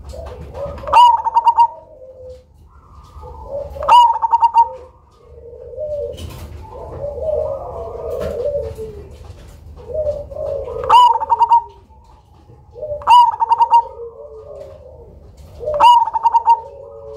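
Black 'cemani' zebra dove (perkutut) singing its cooing song over and over. There are five loud phrases, about every two to three seconds, each breaking into a quick rattle of notes, with softer, lower cooing between them.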